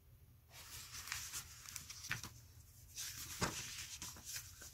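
Pages of a paper picture book being turned by hand: faint rustling and crinkling of paper with small taps, starting about half a second in and louder near the end.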